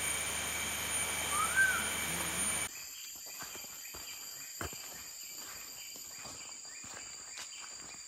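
A steady high-pitched drone of forest insects, with a single short bird whistle rising then falling about a second and a half in. After a cut near three seconds, footsteps on a dirt track over a quieter steady insect drone.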